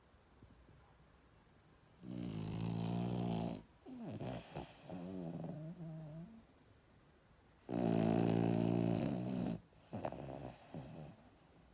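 A 5½-month-old French bulldog puppy snoring: two long, loud snores about five and a half seconds apart, each followed by softer, wavering breath sounds.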